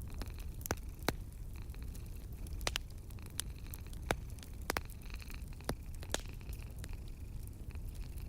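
Wood fire burning in a fireplace, crackling with irregular sharp pops, a few of them louder, over a steady low rumble.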